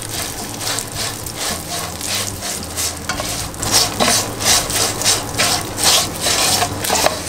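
A spatula stirring and scraping crisp fried onions, curry leaves and Maldive fish flakes around a nonstick pan of hot oil: a dry, crispy rasping sizzle, with a stroke about every half second. The crispy sound is the sign that the mixture has fried dry and crisp, as wanted.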